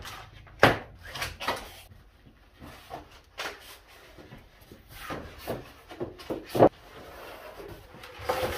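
Packaging and parts of a large steel tool chest being handled during unboxing: a run of sharp knocks and clatters with rustling between them. The loudest knocks come about a second in, near the middle and about two-thirds of the way through.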